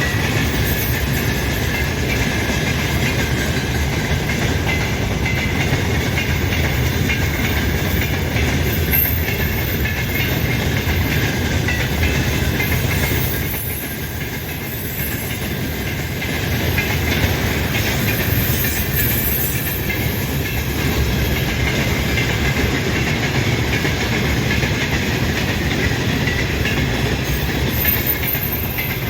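Mixed freight train running past at speed: a steady rumble with the clatter of wheels over the rails, briefly a little quieter about halfway through.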